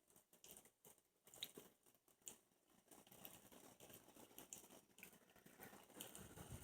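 Near silence with faint, scattered ticks and patter: water droplets spattering from an ultrasonic mist maker running in a small bowl of water.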